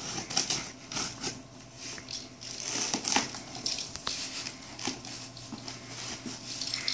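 A box cutter slitting packing tape and the cardboard flaps of a shipping box being pulled open, then plastic packing crinkling as hands reach in. The sound is an irregular run of scratchy rustles and crackles with a few sharp clicks, the sharpest about three seconds in.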